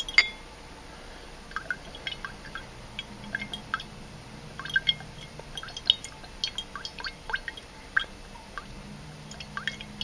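Drops of Cliplight Super Seal leak sealer falling one at a time into liquid in a glass jar, making many short, irregular plinks. A sharper click comes just at the start.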